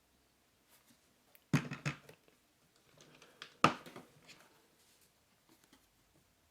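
Two short knocks about two seconds apart, with faint clicks and rustles between them: handling noise.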